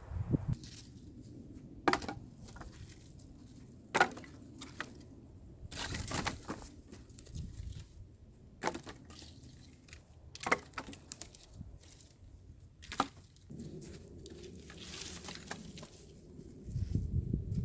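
Irregular sharp cracks and crunches, about half a dozen spread over several seconds, with softer rustling between them.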